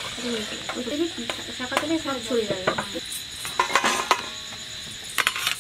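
A metal slotted spoon clinks and scrapes against a steel wok while samosas fry in oil, with a steady high chirring of crickets underneath. The clinks come irregularly, bunching up around the middle and near the end.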